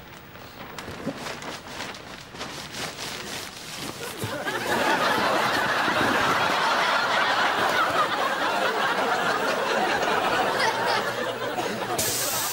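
Crinkling of a black plastic bin bag being rummaged, then from about four seconds in a studio audience laughing loudly and steadily.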